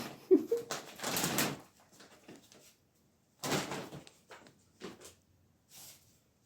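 A puppy scuffling and rummaging, with one short squeak about a third of a second in, then scattered scrapes and rustles that grow fainter.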